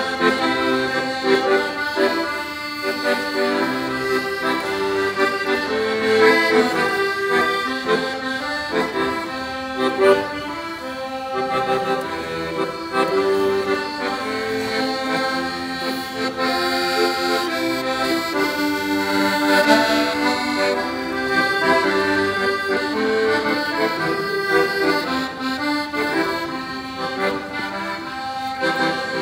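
Accordion played solo, held chords under a moving melody line.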